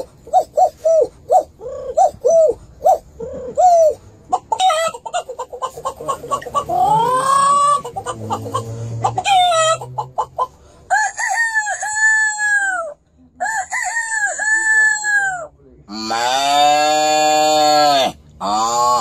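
A man imitating a hen and a rooster with his voice: a run of short repeated clucks, then a series of crowing calls, the last one long and held near the end.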